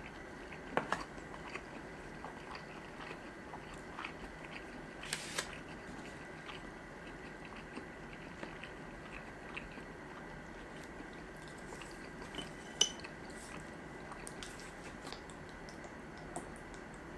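Close-miked eating sounds of someone chewing sushi: soft chewing with scattered small clicks and smacks, a few of them sharper, over a steady low hiss.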